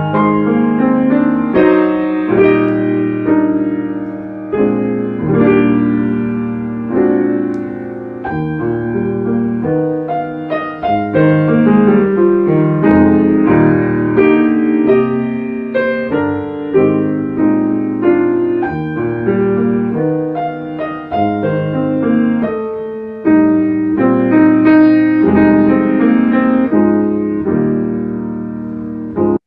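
Piano playing a church prelude in chords, a recording shared over a Zoom call; it stops abruptly at the very end.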